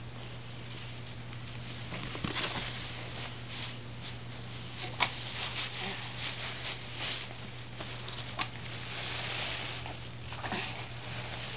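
Shredded Easter basket grass rustling and crinkling as a baby grabs and pulls at handfuls of it, with a few sharper crackles, over a steady low hum.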